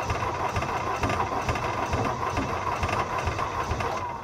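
Deutz diesel engine of a Gehl skid steer being cranked by its starter motor, turning over with a rapid uneven chug and a steady starter whine but not catching, because the fuel supply was left shut off. Near the end the cranking stops and the starter whine falls away.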